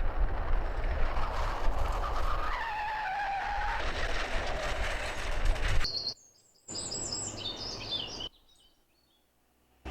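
Street traffic noise with a car's tyres screeching in a falling squeal, then a sharp hit about six seconds in. A short stretch of high chirping follows before the sound cuts out.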